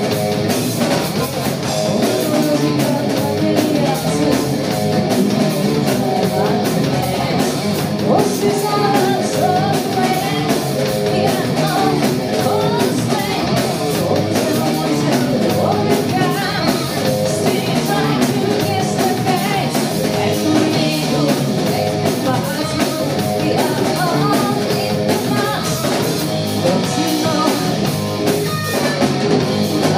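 Live rock band playing loudly: electric guitar, bass guitar and drum kit, with a woman singing over them.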